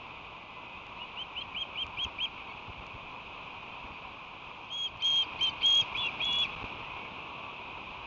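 Ospreys calling: a soft run of about seven short rising chirps, then about four seconds in a louder run of about six, over a steady hiss.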